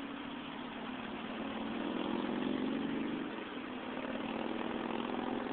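Steady road and engine noise heard inside a moving car, swelling slightly about two to three seconds in.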